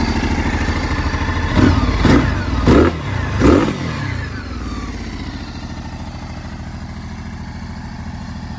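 2019 Ducati Multistrada 1260's 1262 cc Testastretta V-twin breathing through a Termignoni exhaust, idling, then blipped four times in quick succession about a second and a half in. Each blip rises and falls quickly, and the engine settles back to a steady idle.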